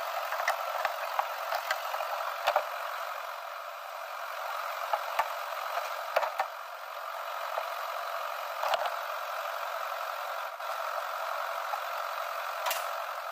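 Hands working a van's underbody cover from below: scattered clicks and knocks of plastic and fittings, the strongest about two and a half and six seconds in, over a steady hiss.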